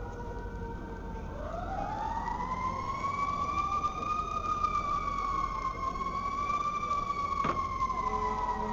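Emergency vehicle siren wailing: its pitch rises about a second in, then falls slowly and steadily, over steady street noise. A single sharp click sounds near the end.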